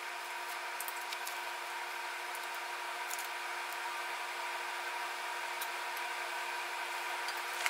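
Steady hum with several fixed tones, like a fan or air conditioner running in the shop. Faint rustles from masking tape being peeled off the car body come about three seconds in and again near the end.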